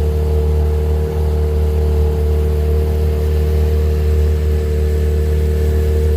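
Outboard motor pushing an aluminium jon boat, running at a steady throttle with an unchanging pitch and a strong low hum.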